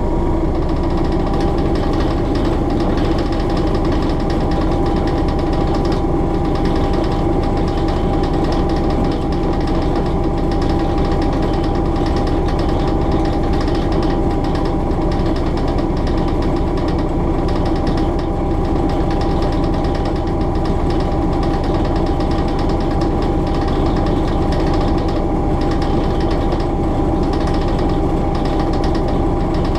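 Hastings DEMU diesel-electric unit's English Electric four-cylinder diesel engine running steadily as the train travels at speed, heard loud from the motor coach cab. It has a deep knocking beat and a steady whine above it that rises slightly in the first second.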